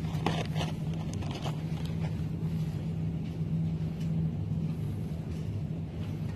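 Plastic-wrapped firework packs rustling and crackling as they are lifted and handled, a few short crinkles in the first second and a half, over a steady low hum.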